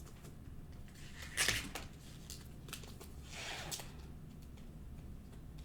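Trading cards and packaging being handled: soft clicks and rustles, with a short swish about a second and a half in and another around three and a half seconds.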